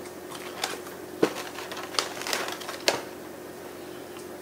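Produce and its packaging being handled and set down on a kitchen counter: about five light, sharp knocks and clicks spread unevenly over four seconds. A faint steady hum runs underneath.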